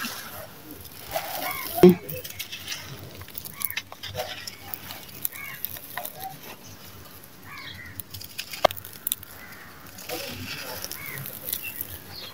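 Hands crumbling and crushing dry sand-cement and then lumps of red dirt: gritty, crunchy crumbling with scattered sharp cracks, the loudest about two seconds in.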